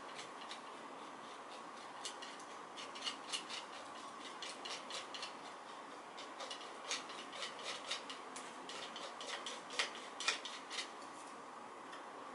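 Palette knife dabbing and scraping thick acrylic paint onto a painting board: irregular light clicks and scrapes, sharpest near the end, over a faint steady room hum.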